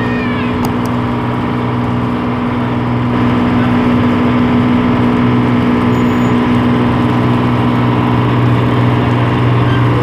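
Diesel engine of a river launch running steadily, a low, even drone heard on board, getting a little louder about three seconds in.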